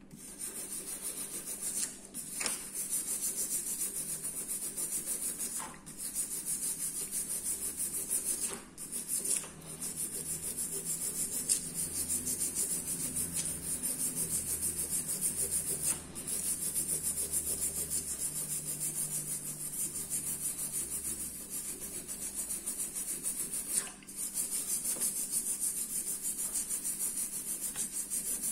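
Fast, steady rubbing or scraping strokes against a surface, stopping briefly a few times.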